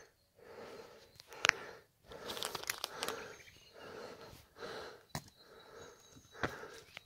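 Faint rustling and a few sharp clicks from walking on an asphalt road with a handheld phone: footsteps and handling noise, the clicks sharpest about a second and a half in and near the end.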